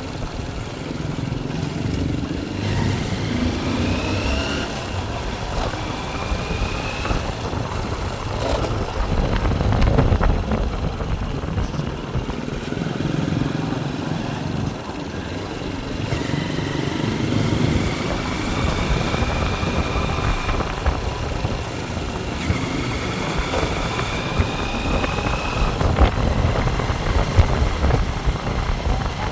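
Motor vehicle engines running, with a steady low rumble and a rising whine several times, each lasting a few seconds.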